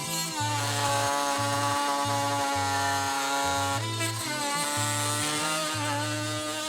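Oscillating multi-tool with a 1-3/8-inch carbide-tooth blade cutting into wood, a steady high buzz that dips in pitch as the blade loads up, shortly after the start and again a little past halfway. Background music with a pulsing bass runs underneath.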